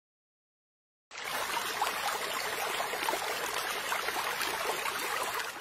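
Waterfall: water spilling over rock into a pool, a steady rushing that starts abruptly about a second in.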